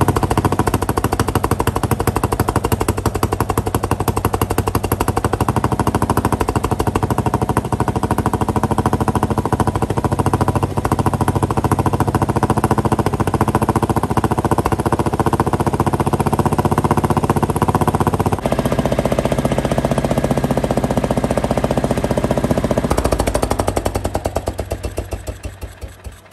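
Power King garden tractor engine running with a rapid, even firing beat. Its note changes about two-thirds of the way through, and near the end it is shut off and runs down to a stop.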